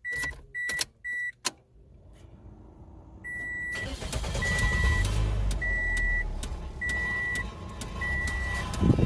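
A car's electronic warning chime: three quick beeps with clicks, then a slower beep repeating about once every second over the low, steady rumble of the engine starting and running.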